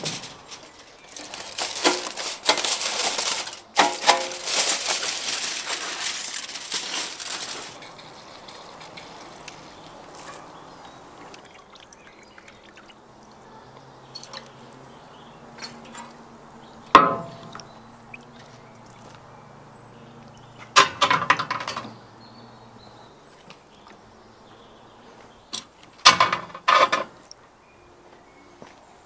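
Liquid hissing on a steel saj griddle for about six seconds near the start, then sharp metal clinks three times as roasted meat and steel kebab skewers are set down on the saj.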